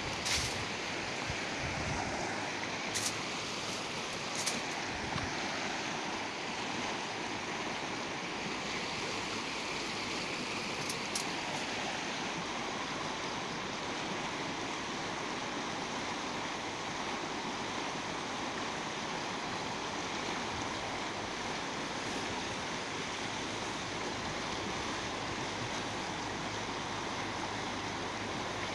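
Steady rush of river water, with a few faint clicks in the first dozen seconds.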